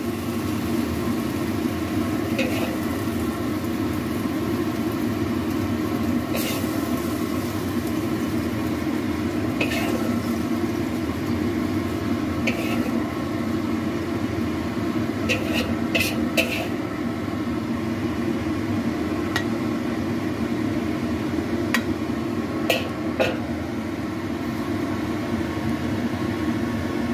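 A metal spatula scraping and clinking against a wok and a ceramic plate while a sauced stir-fry is scooped out and served, with several sharp scrapes spread through. A steady hum runs underneath.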